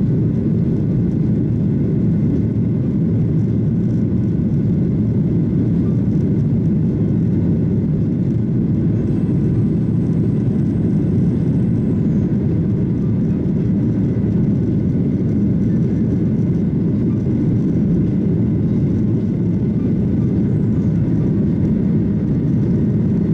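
Steady roar of a Boeing 737-800's CFM56 jet engines and rushing airflow, heard inside the passenger cabin in flight. A faint high-pitched tone sounds for about three seconds midway.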